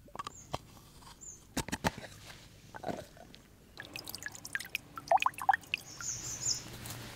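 Water dripping off a rock face into a half coconut shell, the drops landing as short plinks about five seconds in. A few sharp knocks come in the first two seconds.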